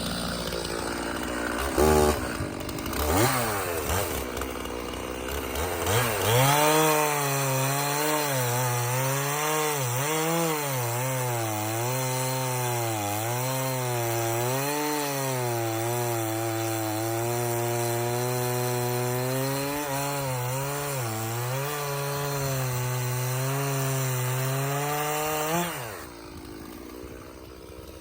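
Stihl MS 391 two-stroke chainsaw revving a few times, then cutting through a firewood log for about twenty seconds, its engine pitch wavering as it bogs and recovers under load in the cut. About 26 seconds in the throttle is let off and the saw drops back to idle.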